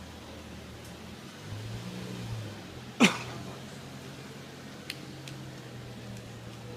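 BMW M5 E60's V10 engine idling steadily through the exhaust, with a slight swell in the note a little after a second in. About three seconds in comes a single sharp crack, the loudest sound, that drops quickly in pitch, followed by a couple of faint clicks.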